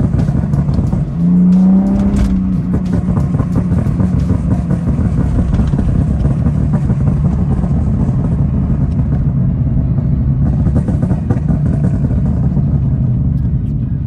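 BMW E46 engine and exhaust heard from inside the cabin while driving. The revs climb briefly about a second in, then settle into a steady drone.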